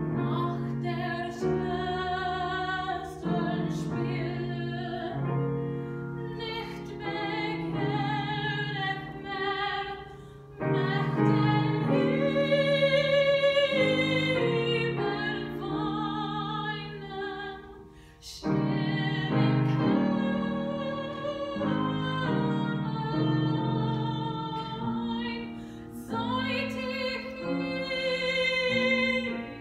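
A female classical singer performing a German art song with grand piano accompaniment, in long sung phrases with short breaks about ten and eighteen seconds in.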